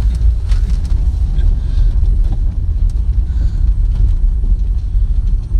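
Land Rover Freelander 1 driving along a rough lane, heard from a camera mounted on the outside of the car: a steady, loud low rumble of wind buffeting the microphone, mixed with road and engine noise.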